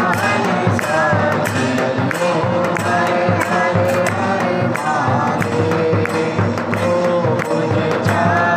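Hindu devotional aarti hymn: singing over a steady, quick percussion beat.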